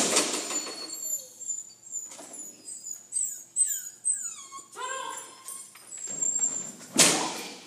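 A dog whining: a string of high-pitched whimpers, each falling in pitch, several in quick succession between about two and five seconds in. A loud noisy burst comes at the very start and another about seven seconds in.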